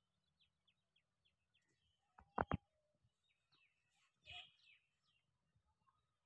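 Faint small-bird chirping: a quick run of short, high, falling chirps in the first couple of seconds, and a louder chirping call a little after four seconds. Three sharp clicks about two and a half seconds in are the loudest sound.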